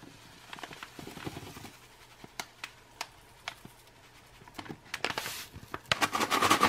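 A foil-lined ration drink pouch crinkles in the hand with scattered small crackles. About six seconds in, dried cranberries are shaken hard inside it with grape beverage powder, a rapid, even rattle.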